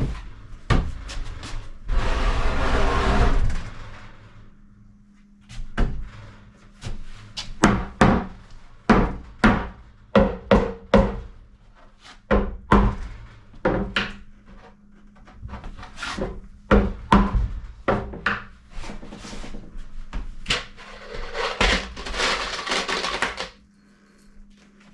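Wooden cabinet parts being knocked and tapped together at their joints during assembly: a long run of irregular sharp knocks. There are two spells of steady noise, about two seconds in and near the end.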